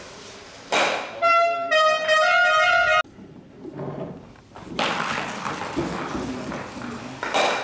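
A sharp clack, then a short brass-like fanfare of held, stepped notes lasting about two seconds that cuts off abruptly. Later comes a rushing noise, ending in another sharp clack near the end, typical of Stocksport stocks sliding and striking.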